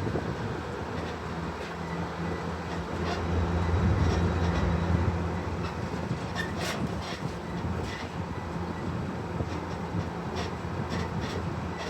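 Parking-lot tram on the move: the tractor unit's engine runs with a steady low hum that swells for a couple of seconds a few seconds in, while the passenger cars rattle with scattered clicks.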